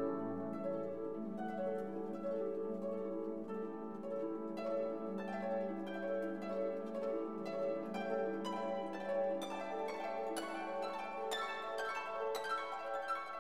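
Instrumental background music: plucked string notes over sustained lower tones, the plucked notes coming quicker in the second half.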